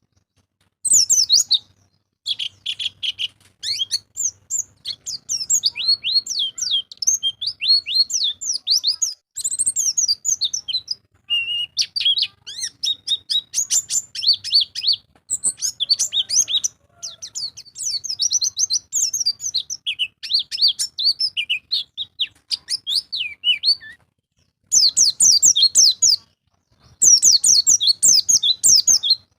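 Pleci (white-eye) singing a fast chattering song of short high chirps, in long runs broken by a few brief pauses.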